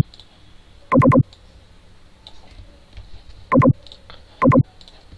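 Four loud clicks from working a computer's mouse and keyboard while copying a line of code and pasting it into a Python console. One comes at the start, one about a second in, and two close together past three and a half seconds.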